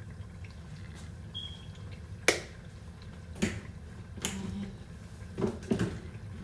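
A few sharp clicks and knocks of kitchen utensils and containers during cooking, five in all, the loudest about two seconds in, over a low steady hum.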